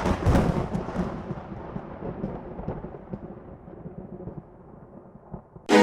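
A deep boom dying away into a long, fading rumble over about five seconds. Orchestral music starts suddenly near the end.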